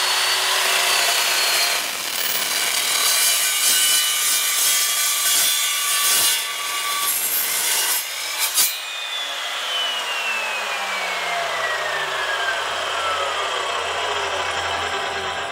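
Evolution S355MCS 14-inch metal-cutting chop saw cutting through 2-inch square tubing, about eighth-inch wall, on a 45-degree miter. The cut runs for about eight seconds and ends abruptly as the blade breaks through. Then the motor is released and the blade winds down with a steadily falling whine.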